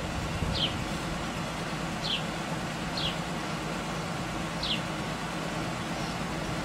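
A small bird gives several short chirps, each sliding quickly down in pitch, spaced a second or so apart, over a steady low hum.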